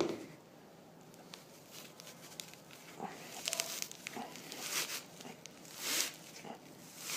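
Reach-iT Mini Poleskin, a sticky-surfaced sleeve, being pulled down a window-cleaning pole: scattered rubbing scrapes and short squeaks as it grips and slides, busiest from about three seconds in.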